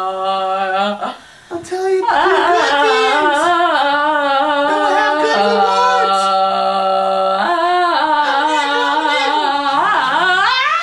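A solo voice singing wordlessly. It holds long, steady notes with shifting vowel sounds, breaks off briefly about a second in, and swoops upward near the end.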